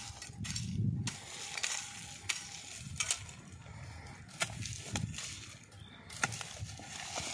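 A hand tool scraping and knocking into a dry dirt bank, with dry grass rustling and scattered sharp clicks every second or so.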